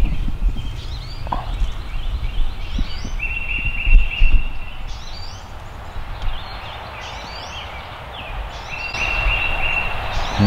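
Songbirds singing in the woods, one song with a steady trill repeated a few times. Low bumps and rustling of the camera being moved and handled, loudest right at the start and about 4 s in.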